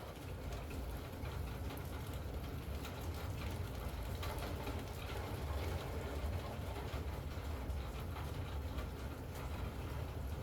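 Steady rain, with scattered drops ticking over a constant low rumble.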